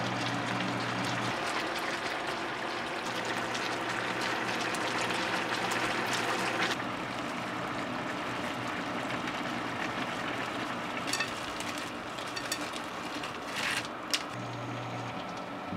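Spicy braised pork ribs and rice cakes simmering in sauce, a steady bubbling sizzle, with a few light clicks near the end.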